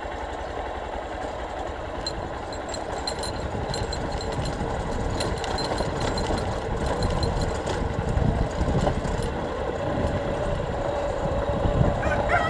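A vehicle engine running as it drives over a rough dirt road, a low rumble with light rattling that grows louder through the second half. A rooster starts crowing right at the end.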